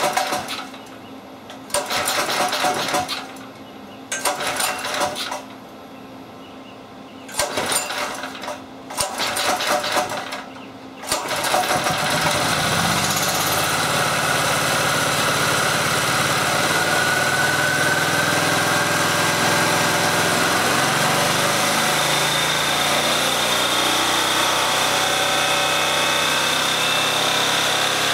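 Portable generator's single-cylinder OHV engine, fuelled with hydrogen, cranked over in several short bursts that fail to catch. About eleven seconds in it fires and settles into a steady run.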